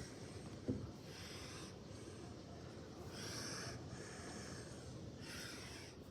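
Close breathing into the microphone, a soft hissing breath about every two seconds, over a steady low background rumble. A short knock comes about a second in.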